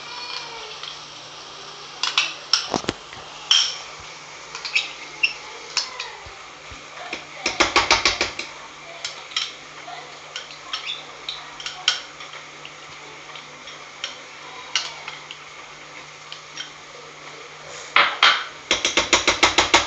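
A spoon clinking and knocking against a cooking pan and bowl while sauce is added, with scattered single clinks and two runs of quick taps, one about eight seconds in and a longer one near the end.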